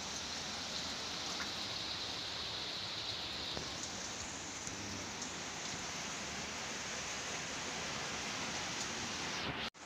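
Steady typhoon rain heard from inside a room, an even hiss.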